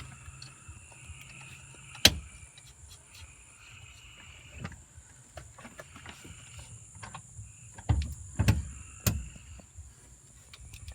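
Scattered knocks and clicks of hand work fitting a steering wheel into a car: one sharp knock about two seconds in, a lighter one near the middle, and a cluster of louder knocks around eight to nine seconds in, over a steady faint high hiss.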